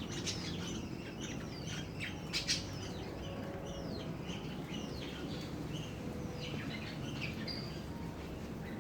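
Small birds chirping, many quick chirps falling in pitch in a busy series, with a couple of sharp clicks about two and a half seconds in.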